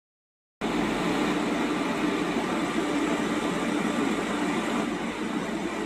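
Electric locomotive standing still with its on-board machinery running, a steady whirring hum. It starts abruptly about half a second in and holds even.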